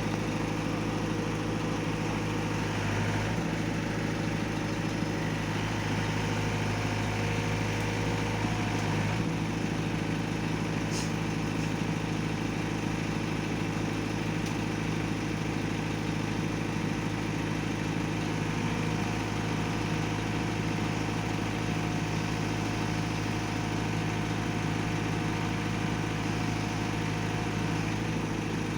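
Heavy diesel engine running steadily at idle, holding an even pitch, a little fuller for a few seconds near the start.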